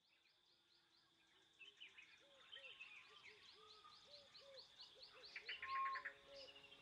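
Faint chorus of many birds calling over a steady high insect drone, fading in from silence and growing louder, with a quick trill near the end.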